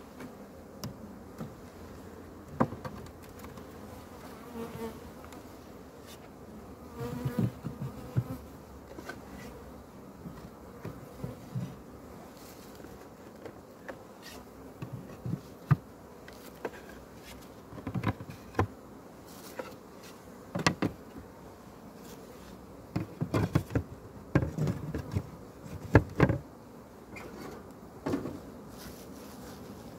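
Honeybees buzzing steadily around an open hive, with repeated sharp wooden knocks and clunks as hive boards are handled and laid across the frame top bars.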